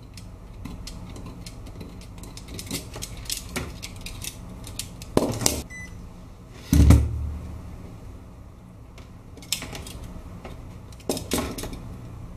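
Knife blade scratching and clicking on a circuit board as a copper trace is cut through, followed about seven seconds in by a heavy thump and then a few sharp clacks of objects set down on the bench.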